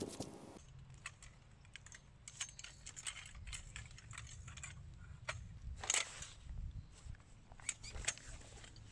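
Black sectional metal tarp poles of a Coleman Hexatarp MDX clinking and clicking as they are folded, wiped with a towel and gathered up, in scattered sharp knocks with the loudest about six seconds in, over a low steady rumble.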